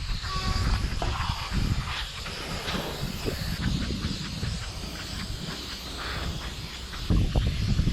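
Spray paint can hissing through a wide Astro Fat Cap nozzle in long sprays, over a heavy low rumble.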